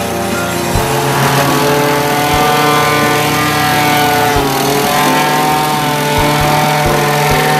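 Small single-cylinder gasoline engine on a vibratory plate compactor running at working speed while the plate tamps loose crushed granite. The engine note sags briefly and recovers about four seconds in, with a few low thumps scattered through.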